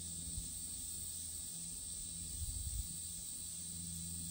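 Steady high-pitched insect chorus over a low steady hum. A soft low bump comes near the start and a short cluster of low bumps a little past halfway.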